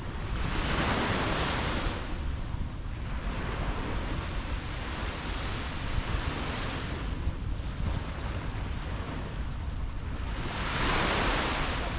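Small waves washing onto a sandy beach, the hiss swelling and fading every few seconds and loudest near the end, over a steady low rumble of wind on the microphone.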